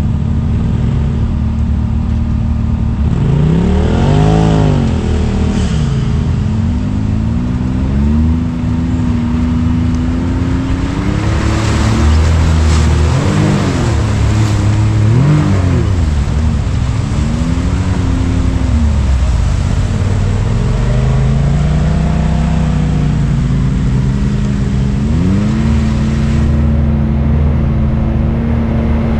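Side-by-side UTV engine revving up and falling back again and again as it is worked over the trail, with a stretch of rushing noise about halfway through.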